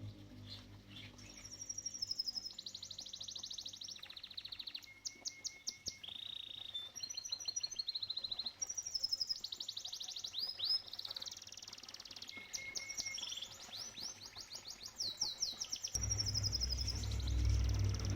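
Domestic canary singing: a long song of fast rolling trills, each held a second or two before switching to another, with a few clear whistled notes in between. A low steady rumble comes in about two seconds before the end.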